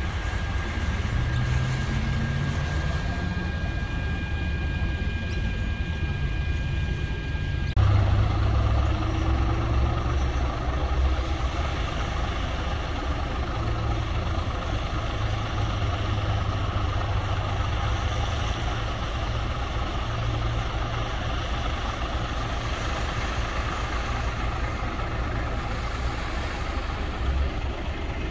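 Vehicle engines running, one rising in pitch in the first seconds. From about eight seconds in, a Scania fire truck's diesel engine idles steadily, low and loud.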